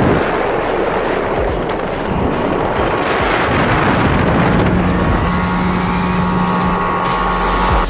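A motorboat running across open water, with wind buffeting the microphone; a steady hum joins about halfway through.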